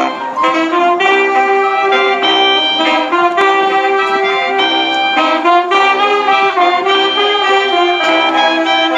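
A wind band playing a klezmer tune: several horns together on a melody, the notes changing several times a second.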